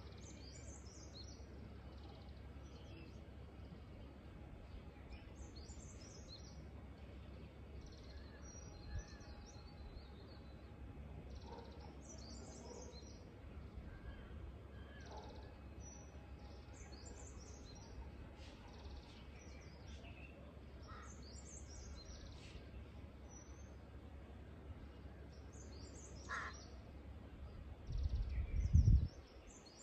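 Birds chirping in short, high, repeated calls every couple of seconds over a steady low background rumble, with a brief louder low rumble near the end.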